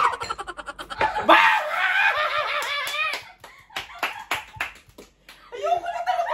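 Several people laughing hard: high-pitched, wavering laughter with short gasps, breaking off in the middle and starting up again near the end.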